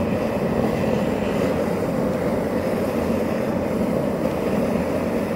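High-intensity torch burning steadily, a continuous deep rushing noise with no change in it.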